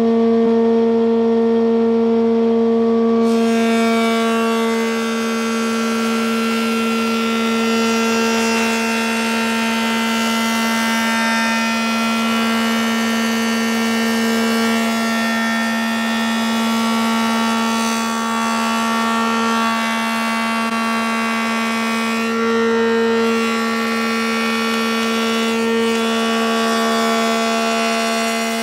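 Whitehead Junior planer thicknesser running on its single-phase 3 hp motor, with a steady hum and whine from the motor and cutterblock. From about three seconds in, a board of larch is fed over the surface planer and the knives cut it with a continuous noise of wood being planed, which eases briefly about two-thirds of the way through.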